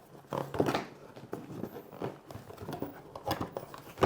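Packaging being handled during an unboxing: irregular rustles and light clicks of boxes and wrapped parts being opened and moved.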